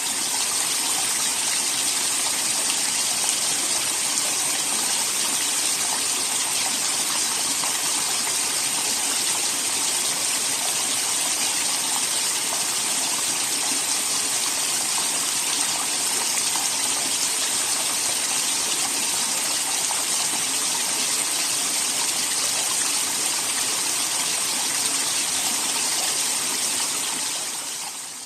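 Small waterfall: water falling and splashing steadily, a constant rushing hiss that fades out near the end.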